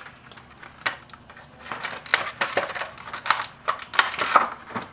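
Plastic retail packaging being pulled open by hand, with irregular crinkling and crackling that gets busier in the second half.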